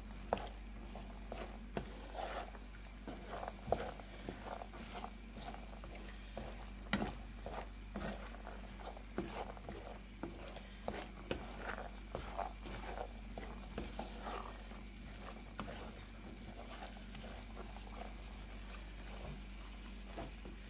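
Wooden spatula stirring cooked beans in a pot, with irregular scrapes and soft knocks against the pot throughout.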